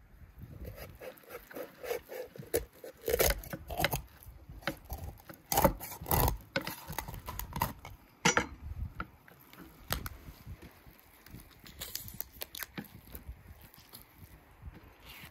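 Knife cutting and chopping a raw guinea fowl apart on a wooden board: soft wet cutting of skin and flesh, with a handful of sharp chops spread through it, the loudest a few seconds in.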